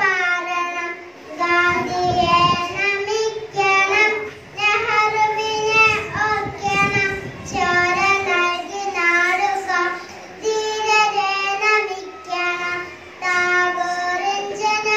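A young girl singing a song into a microphone, unaccompanied, holding each note with short breaths between phrases.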